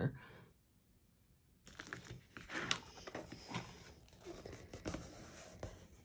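Hands rubbing and pressing a thick sheet of watercolour paper onto a canvas panel: faint rustling and scuffing of paper, with a few sharp crinkles, starting about two seconds in.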